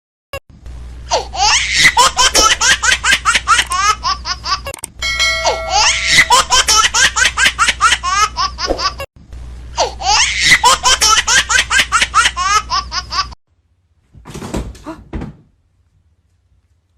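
Hearty laughter in rapid pitched peals: three long bouts, much alike, then a short burst near the end.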